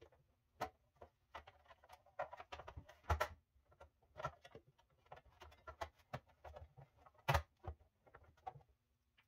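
Refrigerator's plastic top cover being worked and snapped into place by hand: scattered light clicks and taps, the sharpest about three seconds in and again about seven seconds in.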